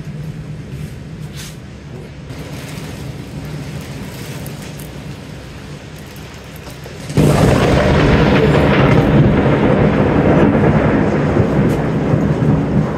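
Thunderstorm: thunder rumbling steadily over rain, then a sudden loud thunderclap about seven seconds in that rolls on and slowly dies away.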